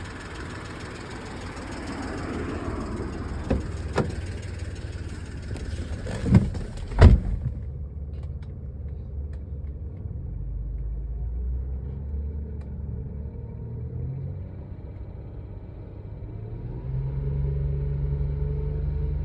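BMW E90 325i inline-six engine running, with a few sharp knocks in the first half; about 17 seconds in it settles at a higher, steady speed and grows louder. The engine has a ticking that the owner takes for noisy lifters.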